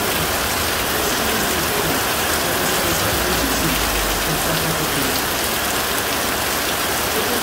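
Rain falling steadily, a dense even hiss.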